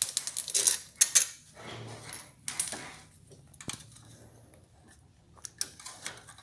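Metal clinking and rattling as a motorcycle muffler's loose clamp bracket is handled against the exhaust: a loud clatter with a bright ring in the first second or so, then a few lighter single clicks, and more clicks near the end.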